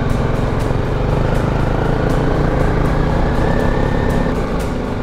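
BMW G310GS motorcycle's single-cylinder engine running at low revs as the bike picks its way through thick mud, heard from on the bike, with a steady run of sharp ticks over it.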